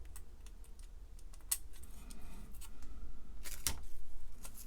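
Scattered small clicks and taps of DIP integrated circuits being handled and pushed into the holes of a circuit board, with a sharp click about a second and a half in and a louder cluster of clicks near the end.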